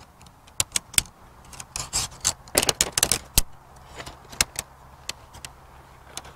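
Lightweight alloy tent pole sections clacking and clicking together as the pole is unfolded and joined. The clicks are sharp and irregular, with a dense run of them around two to three seconds in.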